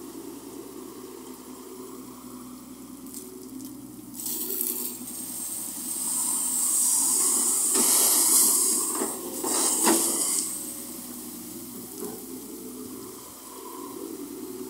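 Bucketfuls of water dumped from a Volvo wheeled excavator's bucket onto its own wheels and body, splashing and gushing loudly from about four seconds in until about ten seconds in, over the steady running of the excavator's diesel engine.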